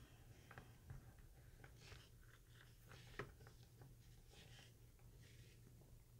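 Near silence: faint small clicks and rustles of fingers handling thin hookup wires and a small circuit board on a rubber bench mat, over a low steady hum.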